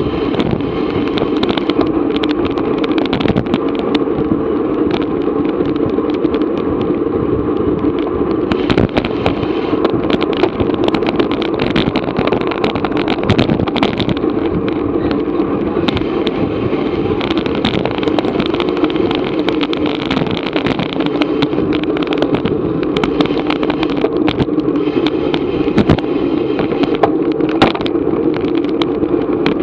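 Wind and road noise on an action camera riding in a bicycle race at speed: a steady rushing hum with constant small rattling clicks.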